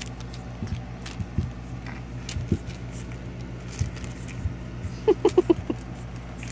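Brussels Griffon puppy being played with by hand on a fleece blanket: soft rustling and scattered light taps over a steady low hum. About five seconds in comes a quick run of five short, high-pitched vocal sounds.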